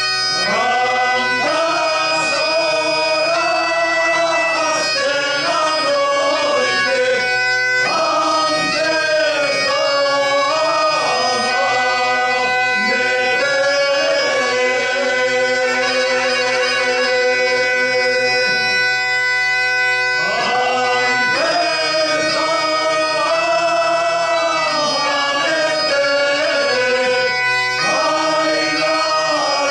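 Male folk choir singing a Galician song in phrases over the steady drone of a Galician bagpipe (gaita galega).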